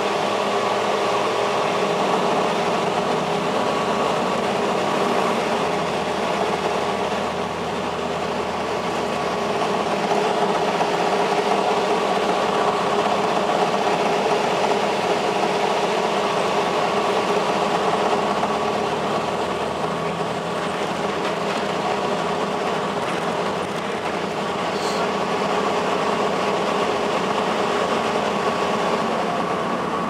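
Interior sound of a 2002 Blue Bird CS transit bus under way: its Cummins ISL9 inline-six turbodiesel and Allison B400R automatic transmission running, with steady whining tones over road and body noise, rising and easing gently with the bus's speed.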